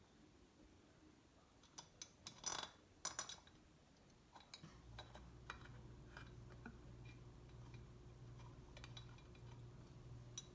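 Small metal hardware clinking and clicking in a short flurry a couple of seconds in, as bolts are sorted through, followed by a few lighter ticks. Partway through, a steady low hum starts and keeps going.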